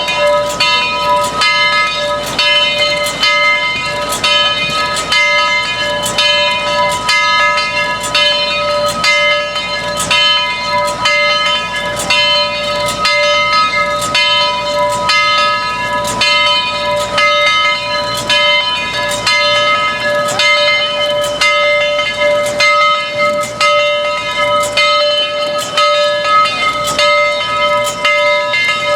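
Steam locomotive bell on Southern 4501 ringing steadily, about two strokes a second, each stroke leaving the same ringing bell tone.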